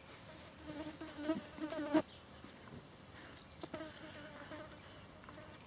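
Flying insect buzzing with a wavering pitch for about two seconds, cutting off suddenly; a fainter buzz returns briefly a little later.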